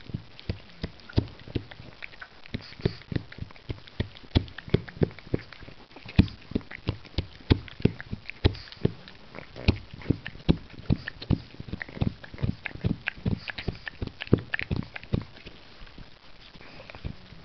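Pug chewing on a long chew stick: a quick, irregular run of sharp clicks and crunches from its teeth on the chew, about three a second.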